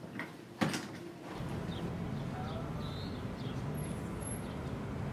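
A single sharp knock, then from about a second and a half in, steady street ambience: a low rumble with short high bird chirps scattered through it.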